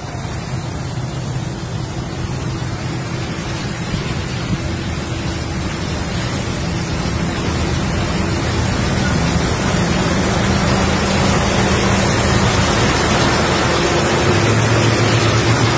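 Road and wind noise from a moving car passing a heavy-haul truck convoy, with the low steady drone of the trucks' diesel engines, which grows louder as the car comes alongside the tractor units near the end.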